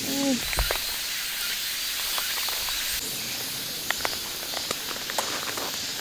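Steady high hiss of outdoor summer ambience, with a short low bump about half a second in and scattered light ticks and taps after it.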